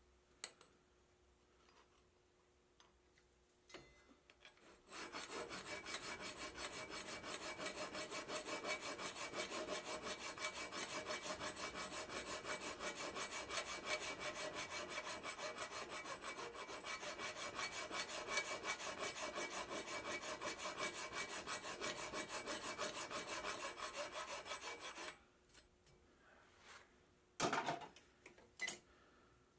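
Hand file worked in rapid, even strokes along the corner of a forged steel tapered reamer, the final filing that makes flat, sharp cutting edges; the filing starts about five seconds in and stops a few seconds before the end. Two brief knocks follow near the end.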